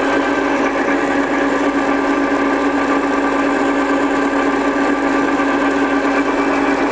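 Old Wilson 7½ x 36 lathe running steadily in its top spindle speed of 477 rpm, its headstock gearing making a steady whine.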